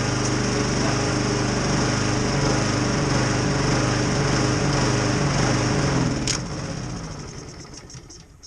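Etesia Pro 46 lawnmower engine running steadily, back in running order after a carburettor clean and fresh fuel. About six seconds in there is a sharp click, then the engine runs down and dies over about two seconds.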